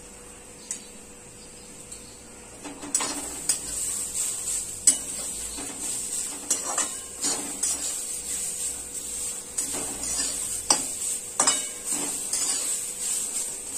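Metal spatula scraping and clinking against a metal kadhai as grated carrot and cabbage are stirred and sizzle in hot oil. The stirring starts about three seconds in, as a run of irregular scrapes and knocks over a steady hiss.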